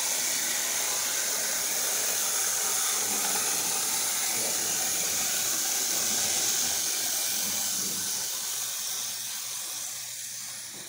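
Steady high-pitched hiss that eases off over the last couple of seconds.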